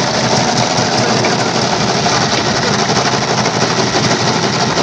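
Freshly rebuilt four-cylinder diesel engine of a 1991 Daihatsu Taft GT turning steadily with a dense, rhythmic mechanical clatter, during its first start attempts after the rebuild.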